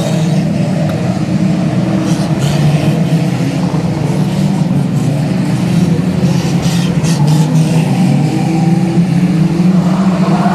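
Engines of a pack of banger racing cars running hard round the oval in a dense, steady drone, with a few brief clatters in the middle. A car is heard passing close near the end.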